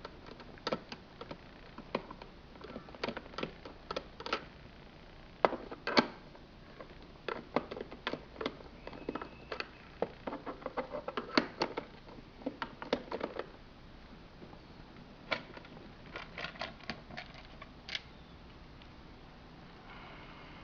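Irregular clicks, taps and knocks of a plastic drip coffee maker being handled and taken apart, its bottom panel being removed, with a quieter pause partway through.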